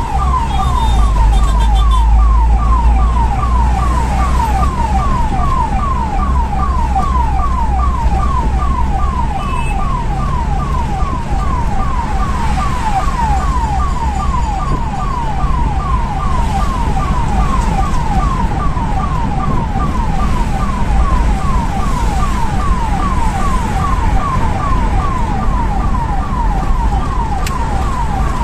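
Ambulance siren on a fast yelp: a falling tone repeating two or three times a second, heard from inside the ambulance's cab over a low rumble of engine and road.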